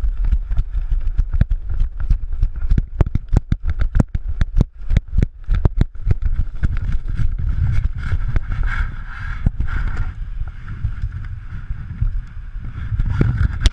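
Wind buffeting the microphone of a camera mounted on a hang glider during a training run, a heavy low rumble. Through the first half, sharp knocks come about three a second, the jolts of running footsteps carried through the glider's frame.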